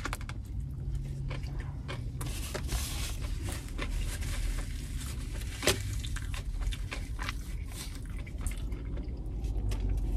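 Close mouth sounds of biting into and chewing a sub sandwich with lettuce and tomato: wet, squishy chewing full of small clicks, with one sharper click a little after halfway. A steady low hum runs underneath.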